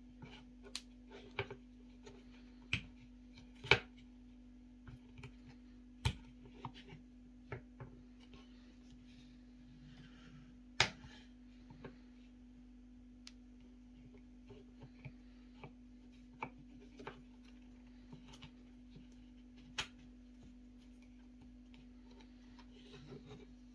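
Hard plastic clicks and taps from a polymer knife sheath and its belt-clip adapter with a wire spring clip being handled, scattered and irregular, loudest around four, six and eleven seconds in. A steady low hum runs underneath.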